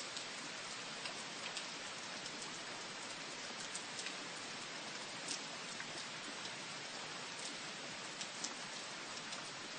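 Steady rain: an even hiss with scattered sharp ticks of individual drops.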